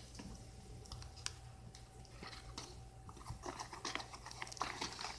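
Faint clicks and scratching from a Leatherman Sidekick multitool being handled and its spring-loaded parts worked, with busier handling rustle in the second half.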